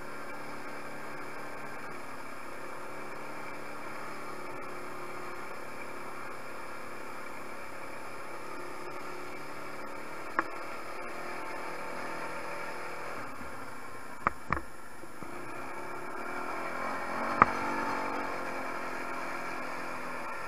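Tao 250 quad's engine running steadily as it rides along, with sharp knocks about ten seconds in and twice in quick succession around fourteen seconds. Near the end the engine grows louder for a few seconds, with one more sharp knock.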